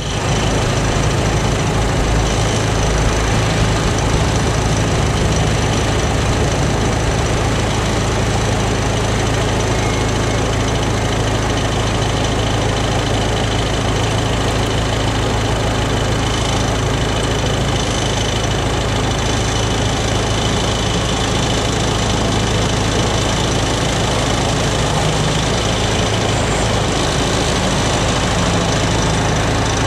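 Diesel engines of Unimog off-road trucks running with a steady low drone that holds even, without revving up or down.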